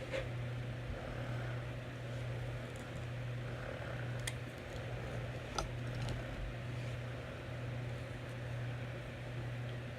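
A steady low mechanical hum with a light noisy hiss over it, broken by a few faint clicks: one at the start, one about four seconds in and one more over halfway through.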